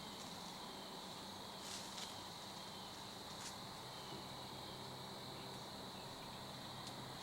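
Crickets chirping steadily in a faint, continuous high-pitched chorus, with a couple of faint clicks.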